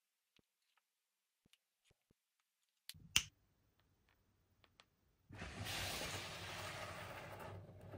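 Light scattered clicks and one sharp click about three seconds in, then a steady rustling, rubbing noise from about five seconds in, as toys and packaging are handled.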